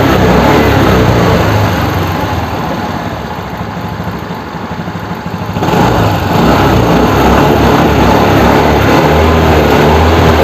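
Suzuki Access 125 scooter's single-cylinder four-stroke engine running smoothly after a rebuild (rebore, new valves, rocker arm, camshaft, timing chain pad, tensioner and oil pump). It eases off toward idle and then picks up sharply again about halfway through.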